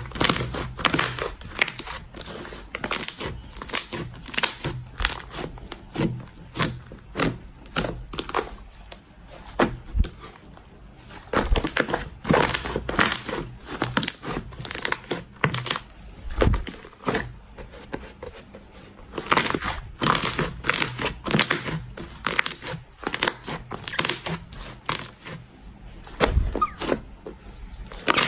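Slime being squished and stretched by hand: a dense stream of irregular sticky pops, clicks and crackles, with a couple of quieter stretches.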